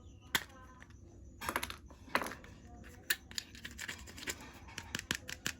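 Hard plastic toy parts and packaging being handled: scattered sharp clicks and taps with short bursts of scratching and rustling.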